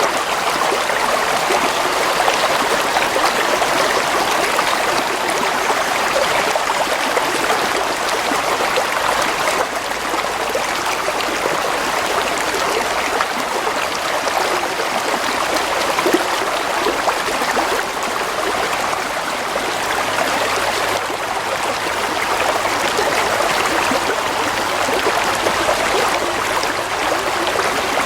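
Flowing stream water running steadily over stones, a continuous bubbling and splashing rush with no pauses.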